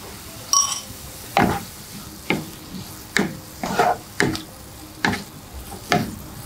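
A wooden spatula stirring and scraping sliced mushrooms and spinach around a nonstick frying pan, about one stroke a second, over a low steady sizzle. A brief ringing clink comes about half a second in.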